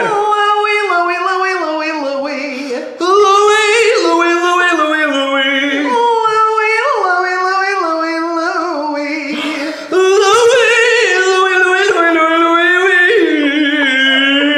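A woman's voice and a puppet character's voice singing a vocal warm-up exercise together, the pitch stepping up and down through runs of notes. There are short breaks for breath about three and ten seconds in.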